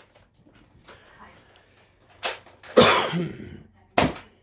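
Two sharp snaps of a toy gun being fired, about two seconds apart. Between them comes a louder, rough cough-like burst of voice or breath.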